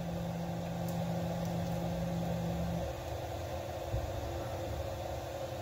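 Stepper motors of a CNC-converted hobby mill driving the table during an automatic probing cycle: a steady hum that stops a little under three seconds in, followed by a faint click about a second later, over a constant background machine hum.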